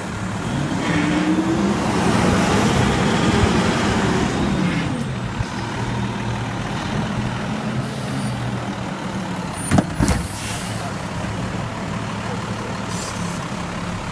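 Automated side-loader garbage truck's diesel engine running, its pitch rising and falling again over the first few seconds before settling to a steady run. About ten seconds in there are two sharp knocks with a short hiss.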